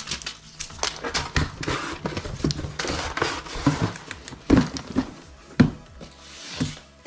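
Irregular knocks, clicks and rustling of cardboard and plastic packaging being handled while a broadband router is unboxed, with a few sharper knocks about four and a half and five and a half seconds in.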